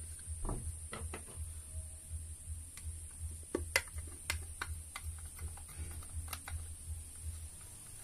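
Scattered light clicks and taps of a screwdriver and fingers on the screws and nuts of a ceiling fan's metal motor casing as the side nuts are loosened, over a steady low hum.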